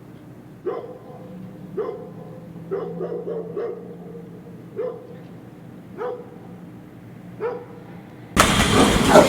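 A dog barking: single barks spaced a second or so apart, with a quick run of several barks about three seconds in. Near the end a much louder, rough noisy sound starts abruptly.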